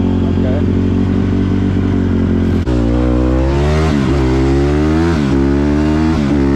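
Honda CRF150R single-cylinder four-stroke dirt bike engine running under the rider, heard from on the bike. It holds a steady pitch for a couple of seconds, then the throttle opens sharply and the engine climbs in pitch and drops back three times as it is shifted up through the gears.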